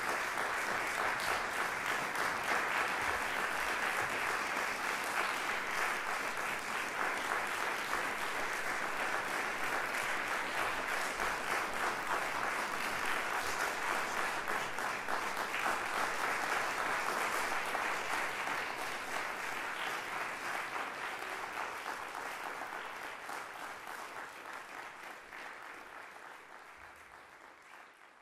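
Audience applauding: a dense, even clapping that holds steady, then gradually dies away over the last ten seconds or so.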